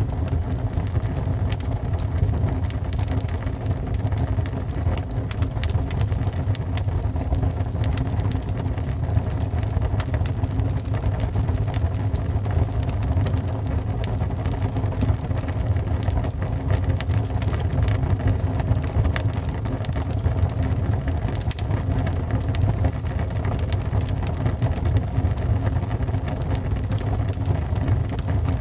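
Wood fire burning in a fireplace: a steady low rumble of the flames with frequent sharp crackles and pops scattered throughout.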